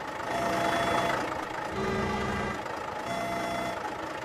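Cartoon sound effect of a small tracked crane's engine running while its arm lifts a pipe, with a louder low hum about two seconds in. Light background music plays underneath.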